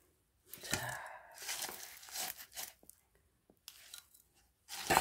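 Plastic scoop digging into and pouring gritty potting mix (soil, perlite and crushed eggshell) into a ceramic pot: several rustling, gritty pours with short pauses between, the loudest near the end.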